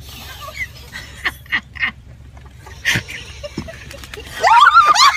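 Three short, quacking bird calls in quick succession about a second and a half in, then a girl laughing loudly near the end as the bird follows at her heels.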